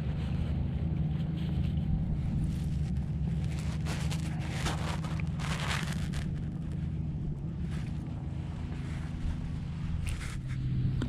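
An engine running steadily with a low hum, its pitch dropping slightly near the end, and a short rush of noise about four to six seconds in.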